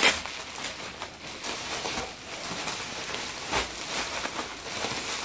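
Bubble wrap and plastic packaging crinkling and rustling as it is handled, with scattered sharp crackles and a louder one at the start.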